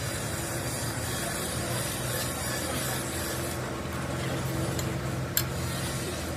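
Steady low machine hum, with a single sharp click about five seconds in.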